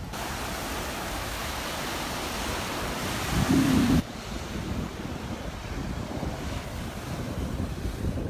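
Surf washing onto the beach with wind buffeting the microphone. A loud full-range hiss in the first half ends abruptly, with a strong low buffet just before it stops.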